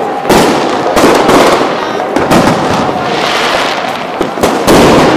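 Fireworks going off: a string of sharp, loud bangs, about five, with the biggest near the end.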